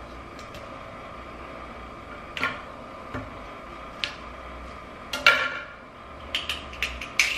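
A kitchen knife knocking on a cutting board as carrots are sliced down the centre: a few separate clicks and taps, then several quicker ones near the end.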